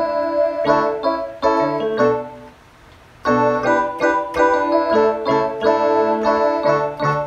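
Casio CTK-240 electronic keyboard played: chords and melody notes over a bass line, with a short break about two and a half seconds in before the playing picks up again.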